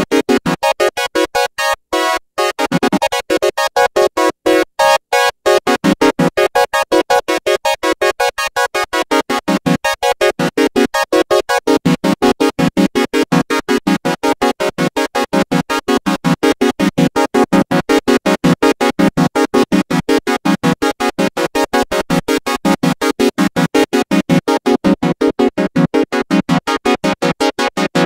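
Arturia MiniBrute analog synthesizer's arpeggiator playing a fast, even stream of notes from a held chord. The notes break off a few times in the first five seconds, then run on without a break.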